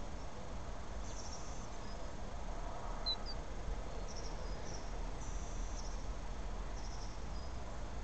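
Short, high-pitched buzzy chirps from small birds, a burst every second or so, with one longer burst past the middle, over a steady low rumble.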